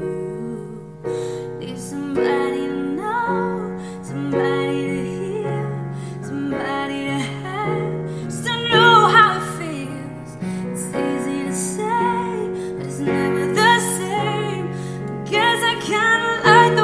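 A slow ballad: sustained piano chords with a voice singing a wavering melody over them.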